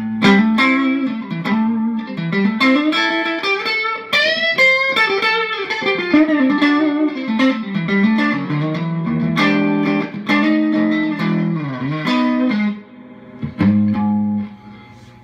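Stratocaster-style electric guitar, freshly strung with D'Addario XL Chromes extra light 10–48 with a plain G string, played in single-note licks with several string bends, to show off the new strings' tone and sustain. A last note rings out near the end and dies away.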